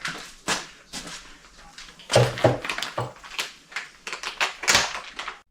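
A run of sharp clicks and metallic knocks, loudest in a cluster about two seconds in: windshield mounting clamps being handled and taken off a UTV's A-pillars.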